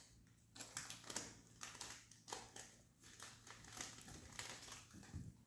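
Faint crinkling of a paper napkin being handled, a string of small irregular crackles.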